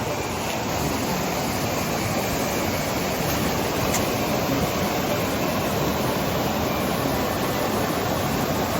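Steady rushing noise, even and unbroken throughout.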